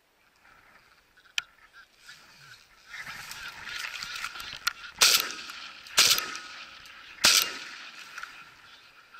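A flock of geese honking overhead, louder from about three seconds in. Three shotgun shots about a second apart cut through the honking past the middle, and they are the loudest sounds.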